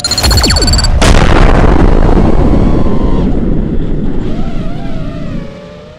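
Dubbed-in movie-style explosion sound effect: a couple of short falling zaps, then a sudden blast about a second in with a long rumble that slowly dies away over the next four seconds.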